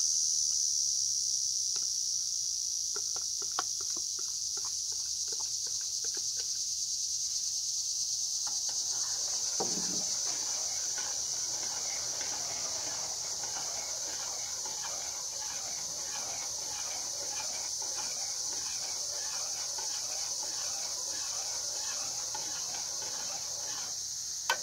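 Steady high-pitched insect chorus, like crickets trilling, throughout. Over it, a spoon clinks against a metal mess-kit cup, with a cluster of light clinks a few seconds in and one duller knock about ten seconds in, then keeps scraping as it stirs the cocoa.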